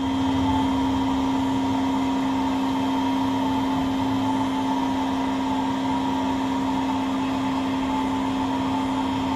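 Electric podiatry sanding file running at a steady speed with a constant motor whine, filing down and smoothing the skin of a foot.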